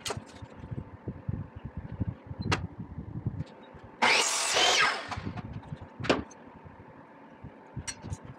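Sliding compound miter saw running for about a second as its blade is pulled down through a strip of metal tile edge trim laid against a wooden board. Sharp clicks come before and after as the trim and board are handled on the saw.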